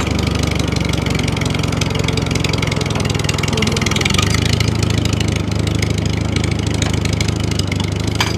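Small motor of a DIY model tractor running steadily, with a low hum and a rapid ticking from its drive.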